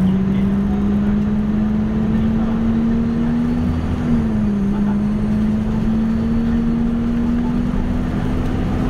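Diesel engine of a Nissan Diesel KL-UA272KAM city bus pulling under way. Its note climbs steadily with speed, drops once about four seconds in as the bus shifts up a gear, then climbs again.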